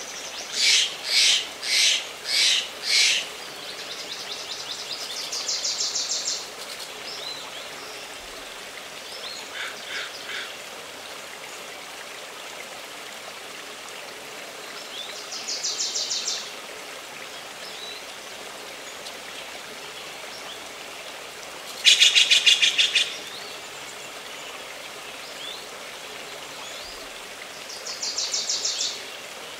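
Songbirds singing in woodland: a run of five loud notes at the start, then short rapid trills every several seconds, the loudest a little past the middle. Under them runs a steady rush of flowing stream water.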